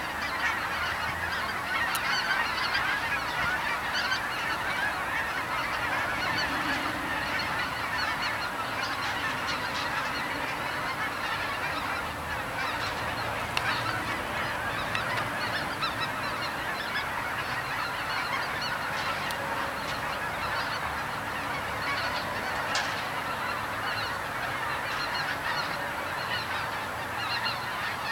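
A large skein of geese flying high overhead, many birds calling at once in a dense, continuous chorus of honking.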